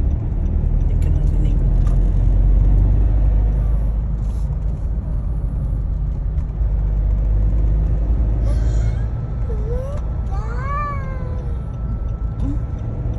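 Steady low road-and-engine rumble inside a moving car's cabin, with about three short cries rising and falling in pitch, close together about ten seconds in.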